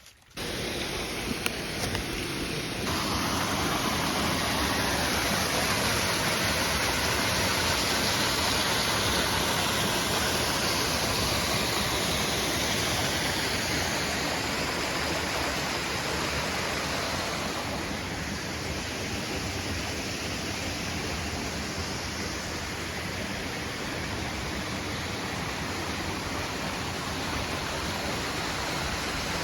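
Steady rush of a creek running high with water.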